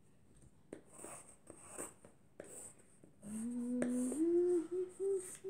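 Pencil scratching on paper in a few short strokes, then a voice humming a few held notes that step up in pitch from about three seconds in; the humming is the loudest part.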